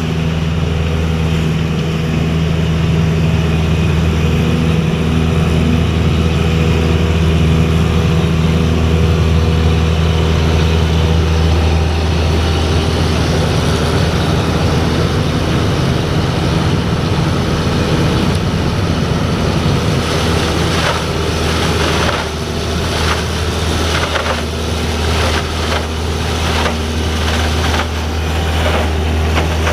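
A 1976 Honda XL175's single-cylinder four-stroke engine idles steadily, warming up to dry out after a wash. Street leaf-cleaning machinery drones along with it. Late on, a rapid run of rasping pulses joins in.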